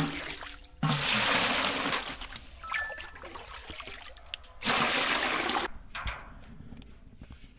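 Water pouring and splashing in two gushes, the first lasting over a second and the second, about three seconds later, about a second, with quieter trickling between and after.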